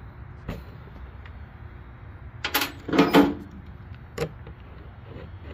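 Metal clicks and clanks from handling pieces of a seal installer tool set, with a short burst of loud clanking about two and a half to three and a half seconds in and single clicks before and after.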